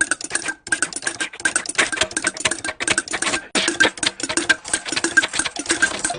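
A cartoon sound effect of rapid, irregular clattering clicks, several a second, like a typewriter or rattling machinery.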